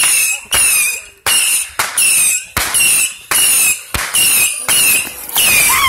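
A firework cake firing a rapid string of whistling shots. Each is a sharp pop followed by a short, slightly falling whistle, at roughly one and a half to two a second.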